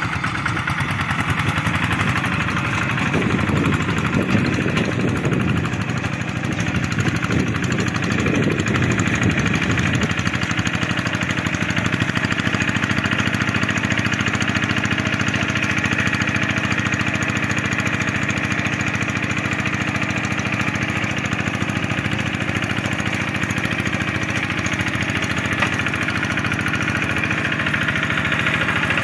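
Kubota RD85 single-cylinder diesel engine of a Quick G1000 hand tractor running steadily as it pulls a harrow through paddy mud. The sound grows rougher and heavier for several seconds, then settles into a steady run.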